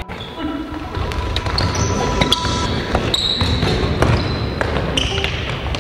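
Futsal ball being kicked and dribbled on a wooden gym floor, giving short thuds, with sneakers squeaking on the boards in brief high chirps several times.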